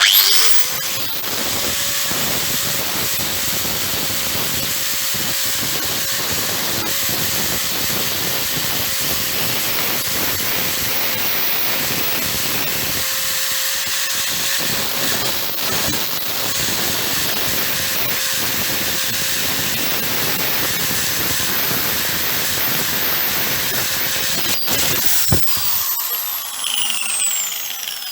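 Small electric power tool spinning up to a steady high whine with a scratchy hiss as it works over metal, cleaning rust and old finish off an air cleaner's top part. It winds down near the end.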